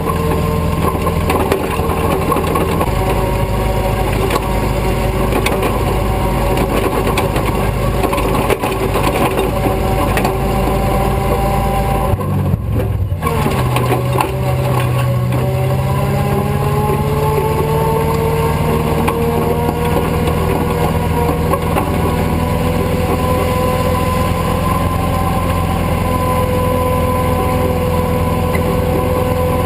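Tow truck's engine running under load as it drives over sand, pulling a stuck SUV on a tow rope. About twelve seconds in the engine note breaks off briefly, then climbs steadily for several seconds as the truck picks up speed.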